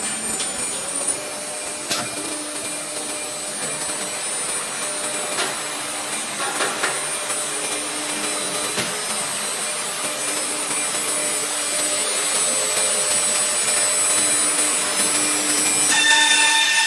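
1325 ATC CNC router running: a steady rushing machine noise with a thin high whine, broken by a few sharp clicks. It slowly gets louder, and near the end a new, lower whine with overtones sets in.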